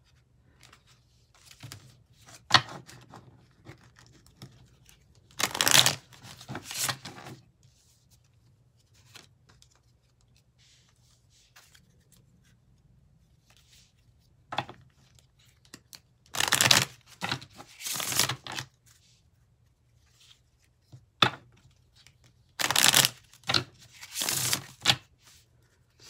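A deck of oracle cards shuffled by hand in several short bursts, with quiet pauses between them.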